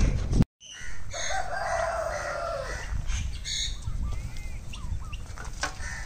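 A rooster crows once: a harsh call of nearly two seconds that starts about a second in and drops in pitch at the end, with faint calls from other poultry after it. Before that, a low rumble on the microphone cuts off abruptly.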